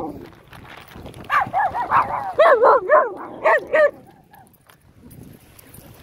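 A small dog yipping and whining: a quick run of about eight short high-pitched yips starting about a second in and stopping about four seconds in.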